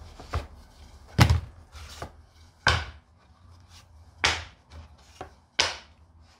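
Wooden squaring plugs and shims being worked loose from inside a glued-up wooden box and set down on the bench: about half a dozen separate wooden knocks and clunks, the loudest about a second in.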